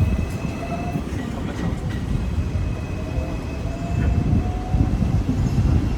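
Hong Kong double-decker electric tram running along its track, heard from on board: a steady low rumble of wheels on rail, with a faint thin whine that rises slowly in pitch.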